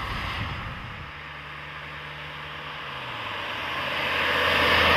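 A Mercedes-Benz 200T W123 estate with a 2.0-litre four-cylinder inline engine driving by at speed: a low engine hum under rushing tyre and wind noise that grows louder toward the end. The engine note drops slightly about three seconds in.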